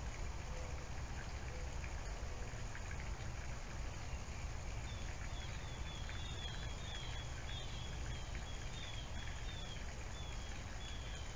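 Outdoor ambience picked up by a live-cam microphone: a steady hiss with a low rumble. From about five seconds in, a bird repeats short, high, falling chirps about twice a second.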